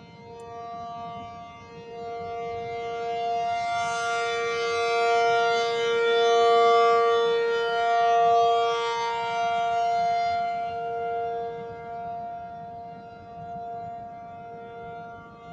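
ACA Penetrator P-50 outdoor warning siren sounding its steady alert signal in a test. It holds a two-note chord at one unchanging pitch, and grows louder to a peak about halfway through, then fades as the rotating horn turns toward and away.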